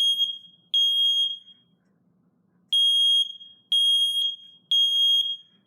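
Battery-powered smoke detector's piezo horn sounding its test alarm: loud, high-pitched beeps about half a second each in the temporal-three pattern. The end of one group of three is followed by a pause and then a full group of three, a beep a second.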